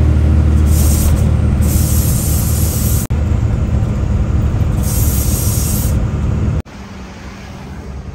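Heavy goods trucks' diesel engines running close by in slow traffic: a loud, steady low drone, broken by three short hisses. About two-thirds of the way in it drops to a quieter engine drone.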